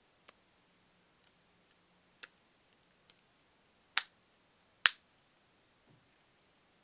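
Back cover of a Lenovo S660 smartphone clicking as fingers press around its edges and its clips snap into place: a series of sharp clicks, the two loudest close together about four and five seconds in.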